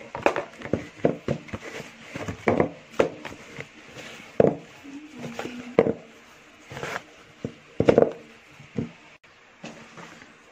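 Pizza dough being kneaded by hand in a plastic basin: irregular thuds and knocks as the dough is pressed and pushed against the basin, some with a hollow ring.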